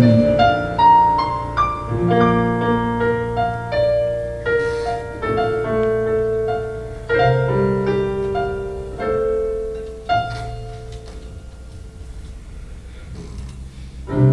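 Keyboard playing slow, sustained chords that change about once a second, fading softer after about ten seconds.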